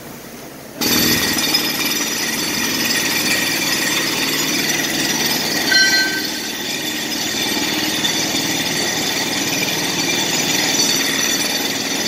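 A jackhammer starts abruptly about a second in and keeps hammering steadily at a rapid rate.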